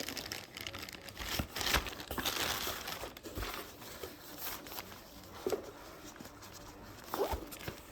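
A small tarp shelter and its packaging bag crinkling and rustling in irregular bursts as they are opened and unfolded by hand, with a few short crackles.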